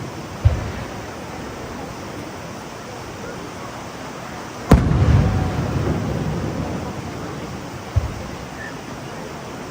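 Aerial firework shells bursting: a deep thump about half a second in, a much louder sharp bang near the middle that trails off over a second or so, and another deep thump near the end.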